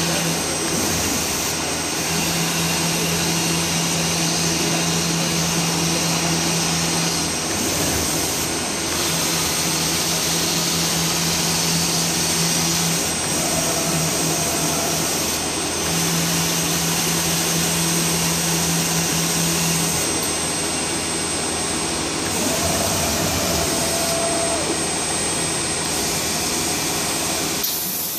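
Vertical CNC panel machine (Putsch Meniconi Alucenter 4016) milling grooves in a white composite panel: the high-speed spindle and cutter run with a steady thin whine over the rush of dust extraction. A low hum comes and goes three times, for a few seconds each.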